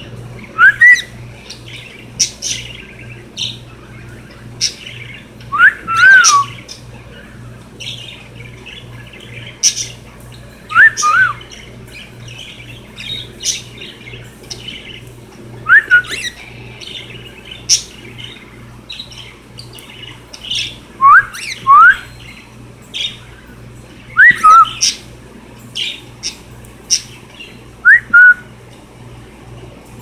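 Cockatiels calling: a short rising whistle, often given twice, about every three to five seconds, with short sharp chirps in between. A steady low hum runs underneath.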